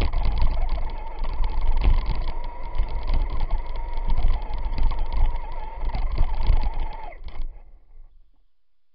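On-board sound of a Traxxas Stampede 2WD electric RC truck driving through snow: a steady, slightly wavering motor whine over a heavy low rumble and frequent knocks from the bouncing chassis. About seven seconds in the motor cuts out and the sound dies away within a second as the truck comes to a stop.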